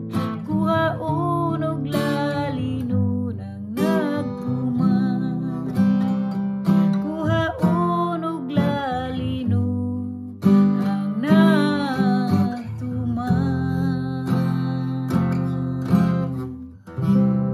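A woman singing a Cebuano-language gospel song while strumming chords on an acoustic guitar, her held notes wavering.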